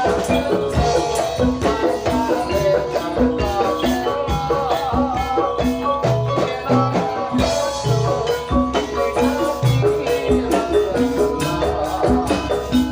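Jaranan Dor ensemble music playing: pitched gamelan-style percussion over a steady low drum beat.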